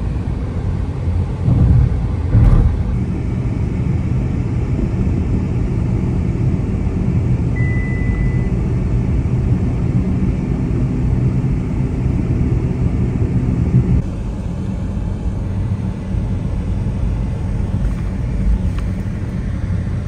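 Steady low road and engine rumble heard inside a moving car's cabin, with two brief thumps about two seconds in. The rumble eases slightly about two-thirds of the way through.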